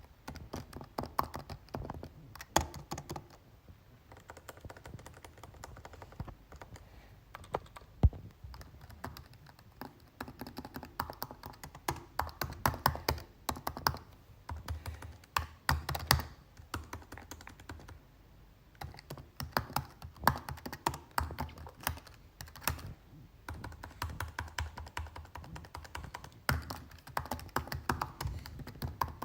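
Computer keyboard being typed on: fast runs of key clicks with short pauses between them, and one louder knock about eight seconds in.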